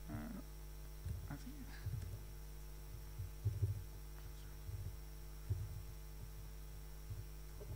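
Steady electrical hum through the PA, with irregular low thuds from keystrokes on a laptop on the lectern picked up by the microphone.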